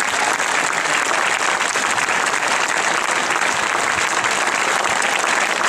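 Large crowd applauding steadily, many hands clapping at once.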